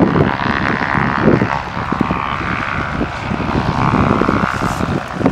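Socata TB10 light aircraft's four-cylinder piston engine and propeller droning at reduced landing power as it flares low past the microphone, the drone sitting a little lower in pitch in the second half. Gusty wind buffets the microphone underneath.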